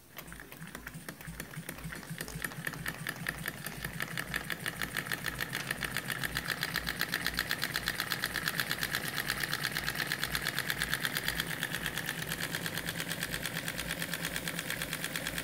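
Weeden toy steam engine starting after a push on its flywheel and running on steam, a fast, even chuffing beat that picks up speed and loudness over the first few seconds and then holds steady.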